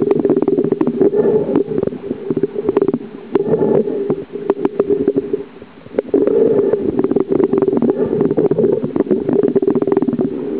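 Muffled underwater rumble with dense crackling, picked up by a submerged camera, coming in surges a couple of seconds long with short lulls twice.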